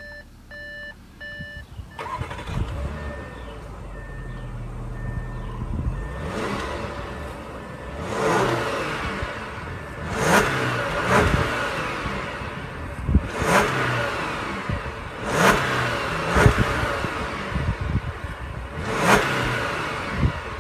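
A 2016 Audi A7's 3.0-litre supercharged V6 idles, heard from the exhaust, and is blipped about seven times in quick revs that rise and fall back to idle. A beep repeats steadily throughout.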